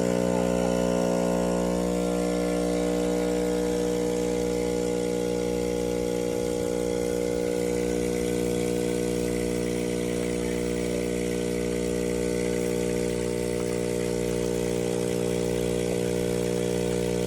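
Espresso machine's vibratory pump buzzing steadily as it runs.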